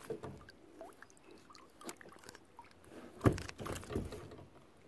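Handling noises on a kayak: short knocks and clicks of the landing net and paddle against the hull, with water dripping and sloshing. A sharp knock a little past the middle is the loudest.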